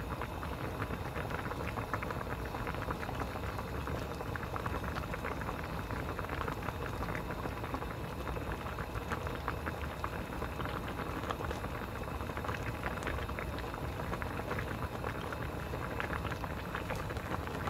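Spicy dumpling stew boiling hard in an aluminium saucepan, a steady bubbling with a constant crackle of popping bubbles.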